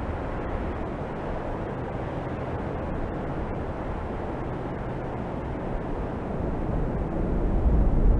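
Steady low rumbling noise, growing louder near the end.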